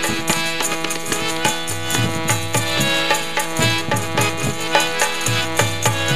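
Instrumental interlude of a benju, the keyed Baloch box zither: a quick plucked melody over steady ringing strings. Hand-drum strokes, about four a second, keep the rhythm.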